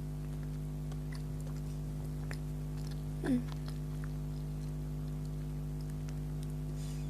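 Close-up chewing of a soft chocolate donut, with faint wet mouth clicks, over a steady low hum. About three seconds in comes one short voiced "mm" that falls in pitch.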